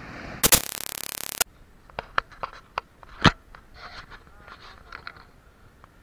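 Handling noise on a small action camera: a loud scraping rustle lasting about a second, then a run of sharp clicks and knocks, the loudest about three seconds in, followed by faint high chirps.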